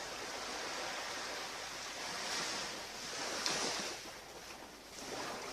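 Waves breaking on a beach: an even surf hiss that swells to a peak about three and a half seconds in, then eases.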